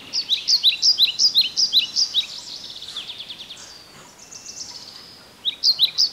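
Bird-like chirping: a quick run of high, falling chirps at about six a second that fades out after a few seconds, then starts again loudly near the end.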